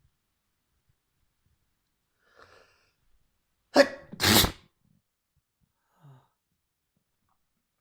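A person sneezing, a fit brought on by a feather: a faint breath, then a loud two-part sneeze, a short sharp burst followed at once by a longer one, about four seconds in.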